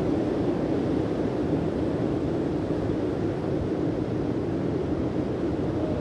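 Steady rushing noise of wind on the microphone mixed with breaking sea surf, unchanging throughout.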